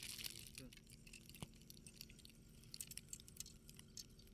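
Faint hiss of fishing line running off a spinning reel as a rod is cast, dying away within the first half second, followed by a few faint scattered clicks.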